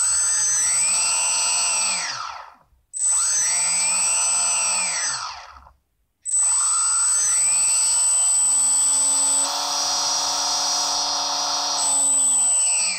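D2822 brushless outrunner electric motor running free with no propeller fitted, throttled from the transmitter: it whines up and winds back down twice, then makes a longer run that climbs, holds at high speed for a few seconds and drops away near the end. A thin steady high tone goes along with most of the running.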